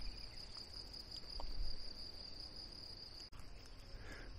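A faint, steady, high-pitched chirring of insects in the grass, with a faint low rumble underneath.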